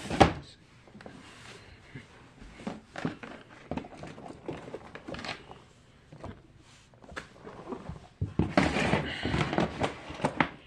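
Fidget toys being handled and set down while being counted: scattered clicks and knocks, a sharp knock just after the start, and a busier stretch of clattering and rustling near the end.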